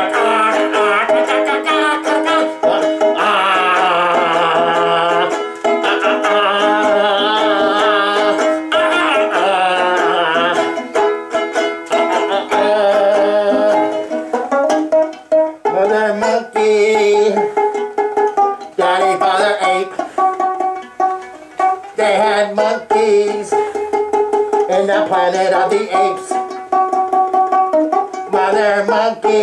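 Instrumental break of a novelty song on ukulele: a wavering melody line over held chords for about the first half, then brisk, rhythmic strummed chords.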